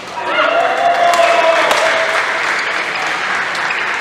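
Spectators applauding, with a few shouts in the first couple of seconds. It swells just after the start and slowly dies away.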